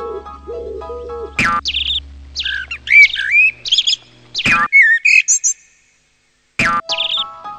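Background music with bird-like chirps and whistles over steady tones and a few sharp strokes, broken by a short gap of silence a little after halfway.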